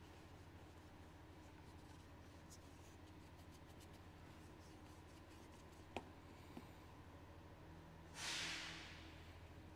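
Near silence with faint scraping and handling over a low steady hum, a sharp click about six seconds in, and a short hiss that fades out near the end.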